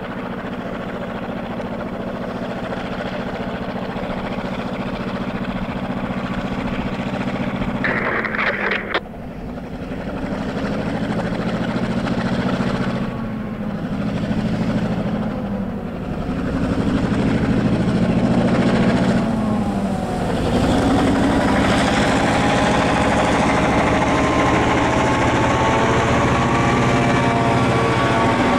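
EMD 567 diesel of an SD9 locomotive working under load while plowing snow, with a steady wash of wind and snow noise. About a third of the way in a brief loud rush cuts off suddenly, and from about two-thirds of the way in the engine note climbs as it revs up.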